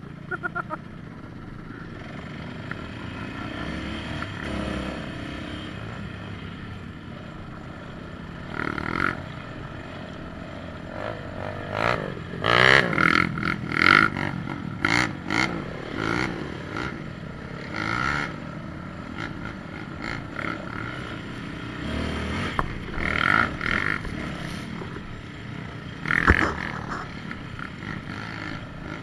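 Quad (ATV) engine running and revved in repeated bursts, its pitch rising and falling, loudest around the middle, with a sharp knock near the end.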